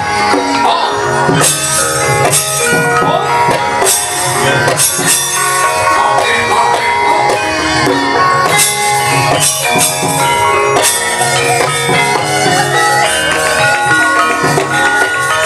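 Javanese gamelan music: many ringing metallic tones with occasional sharp drum strokes.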